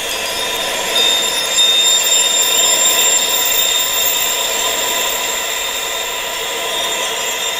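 Tinnitus-relief wind sound: a steady hiss of wind noise sitting in the upper range with almost no bass, layered with several thin, steady high-pitched tones. It swells slightly about a second in and then holds steady.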